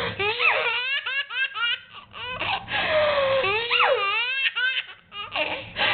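Baby belly-laughing in rapid runs of short giggles, with a couple of long high squeals that swoop down and back up. Short breathy rushes come between the bouts of laughter.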